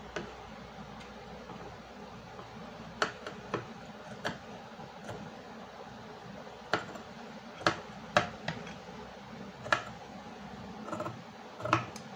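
Large steel tailor's scissors snipping through two layers of eyelet fabric (shirt cloth and its lining) to cut a neckline. About ten sharp clicks of the blades closing, at irregular intervals.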